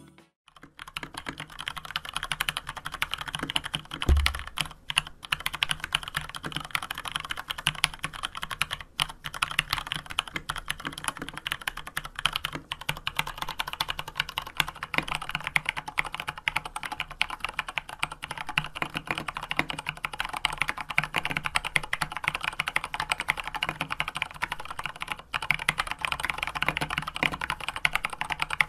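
Fast, continuous typing on a Varmilo mechanical keyboard, the keystrokes running together in a dense clatter. For the first stretch it wears its own stock keycaps. From about fourteen seconds in, it wears tall SA-profile PBT keycaps.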